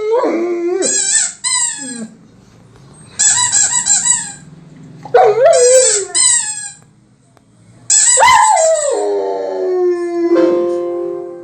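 A dog's rubber squeaky toy squeezed in quick pairs of high, wavering squeaks, with a German Shepherd howling along in between. Near the end comes one long howl that falls in pitch and then holds steady.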